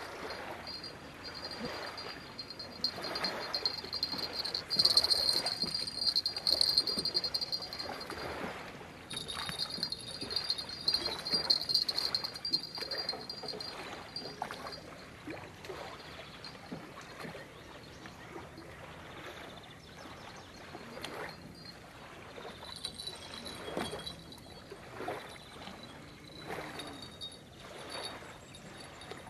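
Insects chirring in a steady high buzz, strongest through the first dozen seconds and fainter after, over soft, uneven water lapping.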